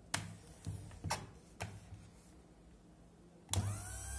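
A few sharp knocks as a hand handles the plastic casing of an Optimum GQ-D13 drill sharpener, then about three and a half seconds in its grinding motor switches on with a click and spins up with a rising whine that settles into a steady running hum.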